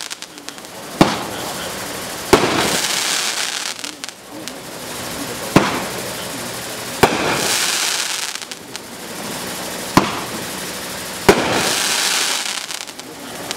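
Dominator 'Black Lightning' multi-shot fireworks cake firing three shots a few seconds apart. Each shot is a sharp launch crack, then about a second and a half later a burst crack that trails off into a crackling hiss as the stars spread and fade.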